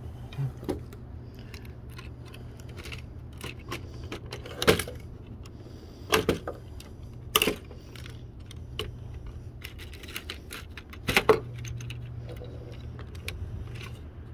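A series of hard blows smashing an old appliance, about six strikes with the loudest near the middle and a quick double strike near the end. Small metal and plastic pieces clatter and rattle between the blows, over a steady low hum.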